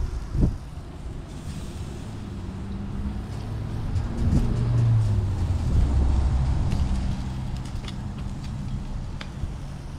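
Low engine rumble of a motor vehicle, swelling from about four seconds in and easing off again. A single sharp knock sounds just after the start.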